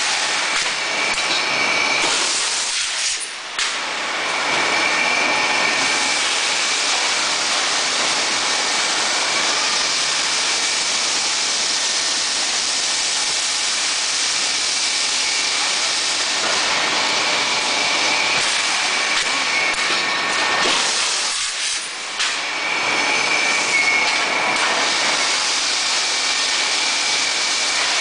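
Steady loud machinery noise of a steel rebar rolling mill, mostly a dense hiss with a faint high whine running through it. It dips briefly twice, about three seconds in and again near the twenty-second mark.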